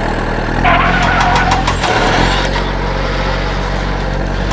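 Engine running steadily with a low, even hum. A louder, higher-pitched noise rides over it from about a second in for roughly a second and a half.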